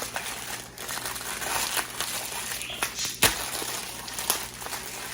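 Plastic fortune-cookie wrappers crinkling and being torn open, with irregular crackles and a sharp snap about three seconds in.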